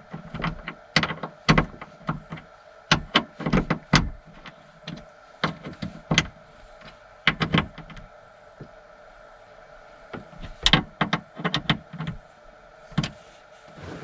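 Irregular metallic clicks and knocks from hand tools and hardware as the rear roller hinge of a VW T5 sliding door is bolted in, coming in clusters with short pauses between them.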